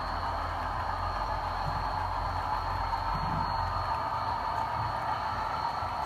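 HO scale model freight cars rolling past on the track: a steady rolling whir of small metal wheels on rails.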